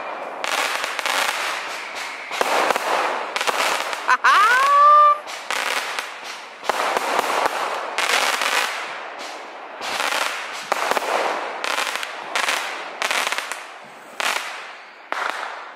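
Fireworks going off in a rapid series of bangs and crackles, each with a trailing rumble. About four seconds in comes a loud rising whistle that levels off.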